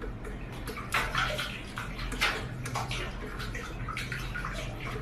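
Water splashing and sloshing in irregular splashes, over a steady low hum.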